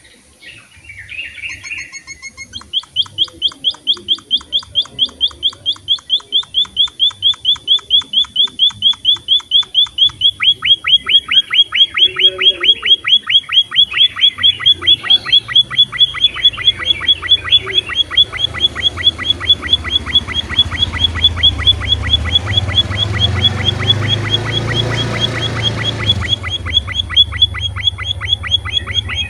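Emprit (munia) finch calling in a long, fast, even run of short sharp chirps, several a second, beginning a couple of seconds in after a few scattered calls.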